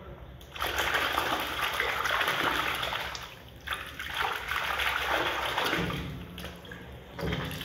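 Water sloshing and splashing in a plastic tub as a hand swishes and rubs a muddy plastic toy under the water to wash it. It comes in two long spells with a short pause about three and a half seconds in, then a brief splash near the end.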